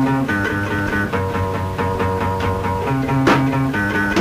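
Rock band playing an instrumental passage: guitar and bass notes over a steady drum beat, with a cymbal crash about three seconds in.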